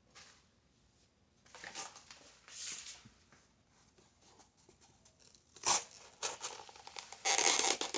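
Ozark Trail stainless-steel pocket knife blade cutting and tearing through cardboard in several rasping strokes, with a sharp knock about halfway through and the loudest stretch of tearing near the end.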